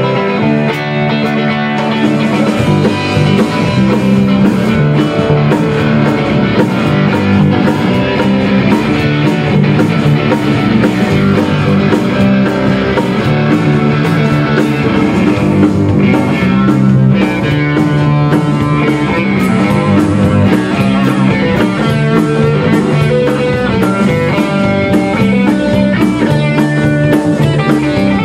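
Rock band playing together live: electric guitar, bass guitar and drum kit, a steady driving groove throughout.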